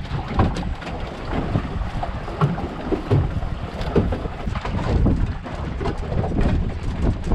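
Wind buffeting the microphone aboard a Wanderer sailing dinghy under way, in uneven gusts, with frequent irregular splashes and knocks as the boat moves through the water.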